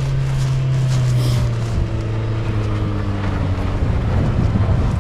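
A stuck vehicle's engine revving under load as it makes another run up a snowy slope. The engine note holds steady, then slowly sags in pitch over the last few seconds.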